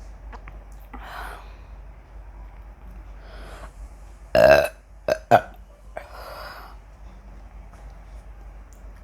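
A woman burping from gulped carbonated cola: one long, loud burp about halfway through, followed quickly by two short ones.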